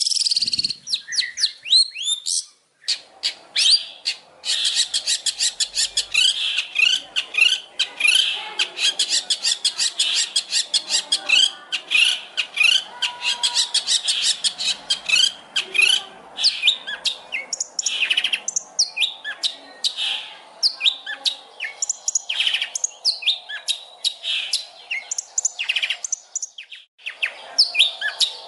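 Songbird singing a fast, varied stream of high chirps and trills, used as masteran training song for competition birds. The notes come rapid and tightly packed for the first half, then turn more spaced and varied.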